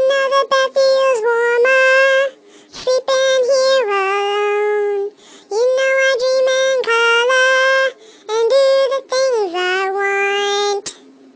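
Talking Ginger app's pitched-up cartoon kitten voice singing a tune in four phrases of about two seconds each, every phrase held on a high note and then stepping down in pitch near its end.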